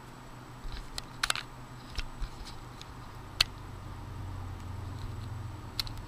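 Small clicks and taps as fingertips set an Intel Core 2 Quad CPU into its LGA 775 socket and nudge it into place, a handful of scattered ticks with the sharpest about three and a half seconds in.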